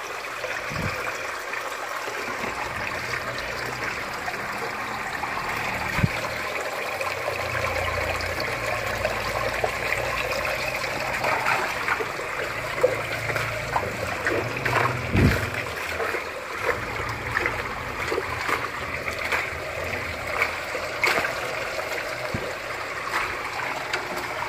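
Aquaponics fish-tank water sloshing and splashing as a wire dip net is swept through it to catch red tilapia, over a steady sound of running water. Short sharp splashes come more often in the second half.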